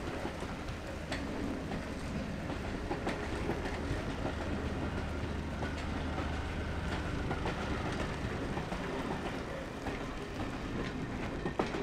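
Railway passenger coaches rolling past at low speed: a steady rumble with the wheels clicking irregularly over rail joints, and a louder clack near the end.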